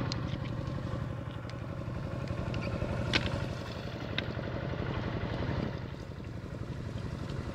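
A small engine running steadily at an even speed, with a few sharp clicks over it, the loudest about three seconds in.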